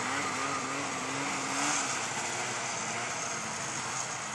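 Distant snowmobile engine running, its pitch wavering up and down as the throttle changes, fading out about two seconds in over a steady hiss.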